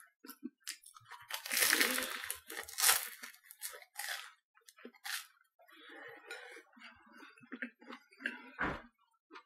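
Crusty baguette sandwich crackling as a bite is torn off, loudest a second or two in, followed by chewing with a few sharper crunches and a low thump near the end.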